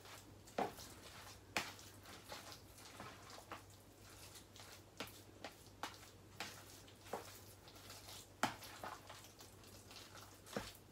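Fork mashing cottage cheese and egg in a plastic bowl: quiet, irregular clicks and taps of the fork against the bowl.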